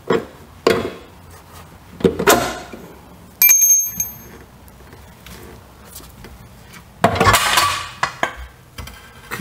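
Metal parts and tools clinking and clattering at the rear axle mount as a brake line clip is worked loose. One clear ringing ping of struck metal comes about three and a half seconds in, and a longer rattling scrape about seven seconds in.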